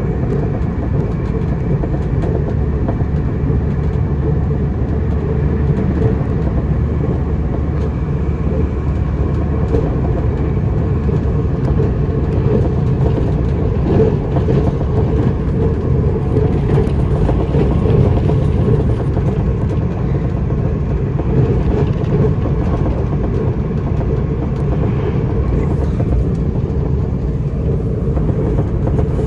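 Steady low rumble of a Puyuma Express TEMU2000 tilting electric train running along the line, heard from inside a passenger car: wheels on the rails and the car's running noise.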